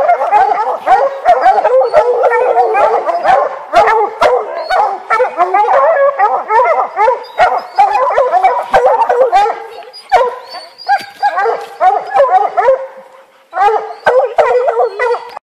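A pack of bear hounds barking together at the base of a tree where they have treed a bear, with many overlapping barks and howls. The chorus thins out over the last few seconds and cuts off abruptly near the end.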